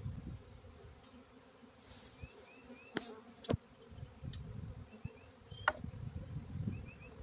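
Swarm of honeybees buzzing in the air around the hive box, with a few sharp knocks about three, three and a half and nearly six seconds in.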